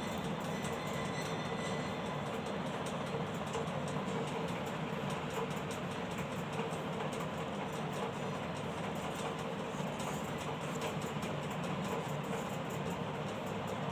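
Steady, even background noise with a faint steady hum running under it, without breaks or distinct events.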